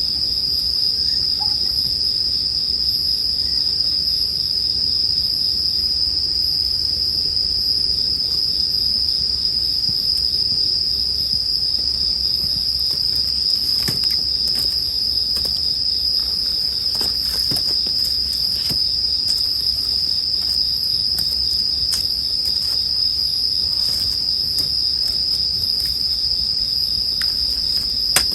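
Japanese bell crickets (suzumushi) singing in a steady, high, unbroken chorus, with a wood campfire crackling lightly beneath it in scattered small pops.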